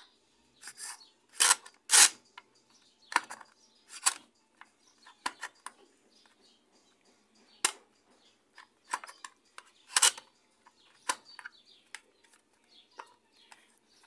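Irregular sharp clicks from a Maytag washing-machine timer as its shaft is turned by hand, the mechanism clicking as the switch contacts catch and release.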